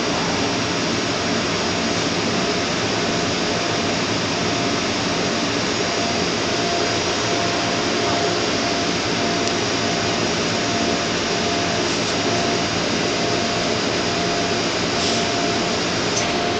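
A steady, even rushing noise like a running blower, with a faint high hum that comes and goes.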